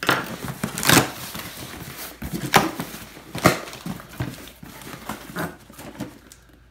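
Corrugated cardboard shipping box being opened by hand: flaps pulled apart with rustling and scraping cardboard, and a few sharp knocks and cracks.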